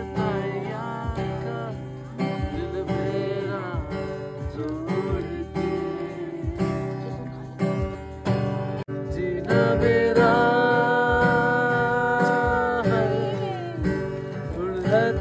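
Acoustic guitar strummed with a voice singing a melody over it, holding one long note about ten seconds in.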